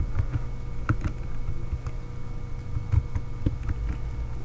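Typing on a computer keyboard: a run of irregular keystroke clicks as a search phrase is entered, over a steady low electrical hum.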